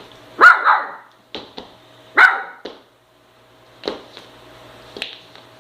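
Miniature Schnoodle puppy barking in short, high yaps: a quick double yap about half a second in and another just past two seconds, with a few light knocks in between.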